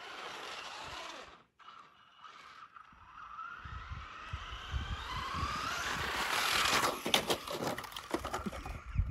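Electric RC truck's brushless motor whining, dropping in pitch at first, then after a short break rising steadily as the truck accelerates. About seven seconds in, a run of knocks and clatter as the truck crashes and flips over.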